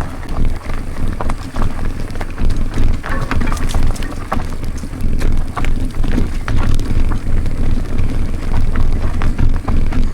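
Mountain bike rolling fast down a rough trail: wind buffeting the microphone, with tyres and frame rattling and clattering over the bumps.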